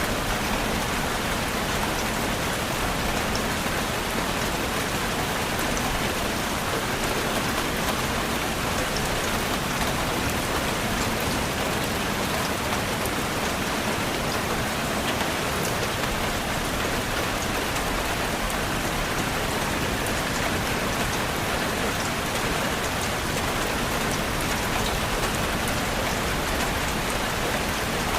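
Steady rainfall pattering on a surface, an even wash of rain noise with scattered droplet ticks.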